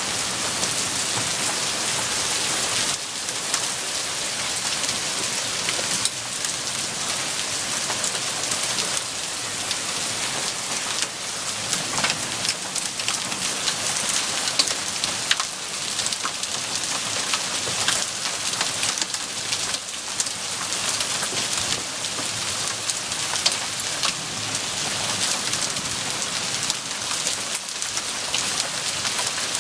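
Hail and heavy rain pelting down: a steady dense hiss dotted with many sharp ticks of hailstones striking.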